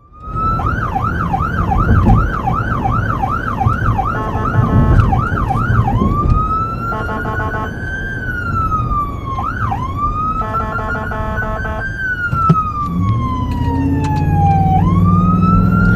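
Electronic emergency siren on a fire battalion chief's Ford F-150 running with lights and sirens, heard from inside the cab. For about six seconds it runs a fast yelp of rapid up-and-down sweeps, then switches to a slow rising and falling wail. A rapidly pulsing tone cuts in three times, and engine rumble grows near the end.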